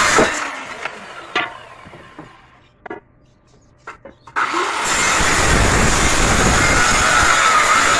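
Handheld electric circular saw finishing a cut through a wooden plank and spinning down, followed by a few wooden knocks. About four and a half seconds in the saw starts again and cuts through the next plank with a steady whine.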